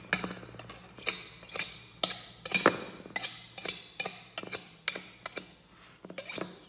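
A knife chopping on a cutting board: sharp, regular knocks about two a second, pausing briefly near the end.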